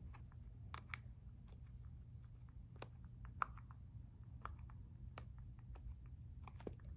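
Silicone Pop-It fidget bubbles pressed one after another with a fingertip, making faint, soft pops at an irregular pace of about two a second. This is the pretty quiet side of the unicorn-shaped Pop-It.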